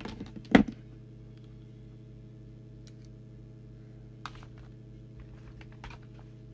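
Handling noise on a workbench: one loud knock about half a second in, then a few light clicks and taps as the opened CB radio and its heavy coiled microphone lead are moved. A steady low electrical hum runs underneath.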